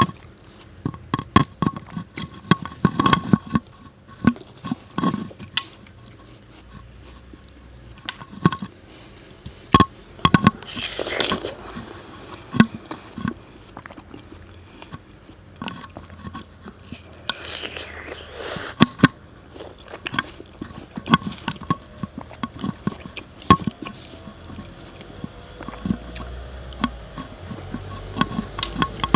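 Close-miked chewing of watermelon: a dense run of wet, crunchy mouth clicks, with twice a longer, hissier juicy bite or slurp.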